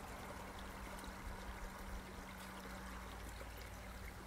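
Faint, steady trickle of running water from a spring.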